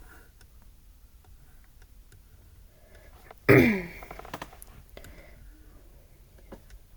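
Scattered faint clicks and taps. About three and a half seconds in comes a short vocal sound that falls in pitch, a brief wordless hum or grunt.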